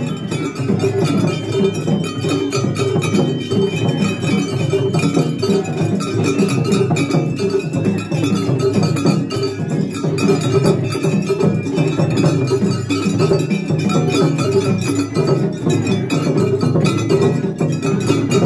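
Japanese festival float hayashi music: fast, steady taiko drumming with a small metal hand gong clanging along in a rapid rhythm.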